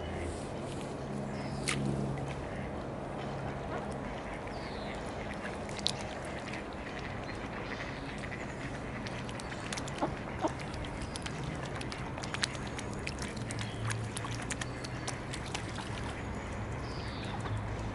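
Mallard ducks quacking close by, with small splashes and clicks of the birds feeding at the water's edge, over a low steady hum.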